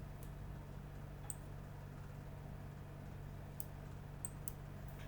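Faint computer mouse clicks, about five spread through, over a steady low hum of room noise.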